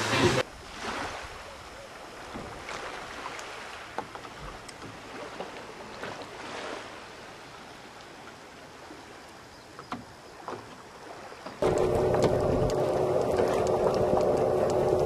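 Quiet sea and wind noise with a few light knocks. Then, a little past eleven seconds in, a boat's outboard motor cuts in loud with a steady drone.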